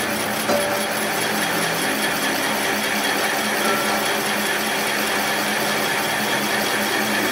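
Metal lathe running steadily, turning a truck differential housing while a single-point tool bores out the weld-repaired bearing seat; a steady machining noise over a low hum.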